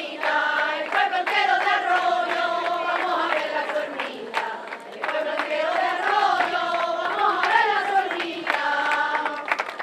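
A group of people singing together in unison, a slow melody with long held notes, with hand claps throughout.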